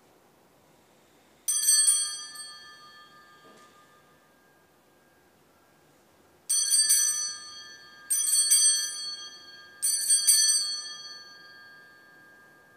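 Sanctus bells, a set of small altar bells, shaken once and then, about five seconds later, three more times about a second and a half apart. Each ring is a quick jangle of several strikes that rings on and fades. The triple ring marks the elevation of the chalice at the consecration of the Mass.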